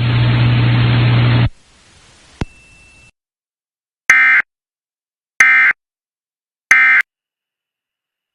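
Emergency Alert System end-of-message data bursts: three short, identical buzzing digital chirps about 1.3 s apart, signalling that the weather radio alert has ended. Before them, the radio's steady hiss and low hum cuts off abruptly, followed by a click.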